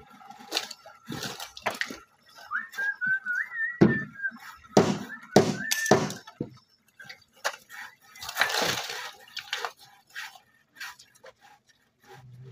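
Timber poles knocking and cracking in irregular blows as they are handled and braced. A short wavering whistle sounds in the middle, and a louder rustling crash comes about two-thirds of the way in.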